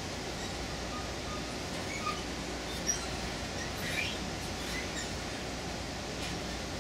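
Steady rumble of a passenger train car rolling slowly, heard from inside the coach, with scattered faint short high squeaks.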